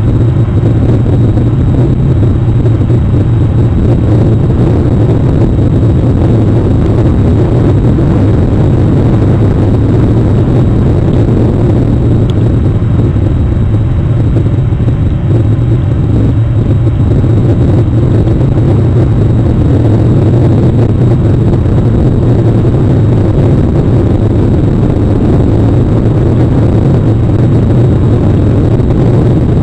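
Steady, loud rain and wind noise on an outdoor webcam microphone, with a constant low rumble underneath.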